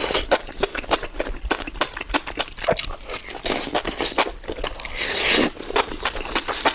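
Close-miked chewing of enoki mushrooms: rapid, wet, crunchy clicks and smacks, with a longer noisy stretch about five seconds in.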